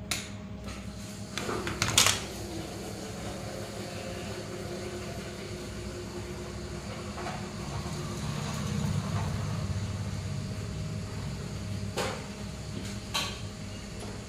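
Knocks and clinks as a glass pane and a rubber glazing gasket are handled against an aluminium window frame. The loudest knock comes about two seconds in and leaves a faint ring that fades over a few seconds, with smaller knocks near the end, over a steady hum.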